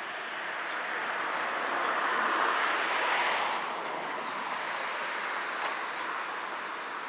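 A vehicle driving past, its road noise swelling to a peak a few seconds in and then fading away.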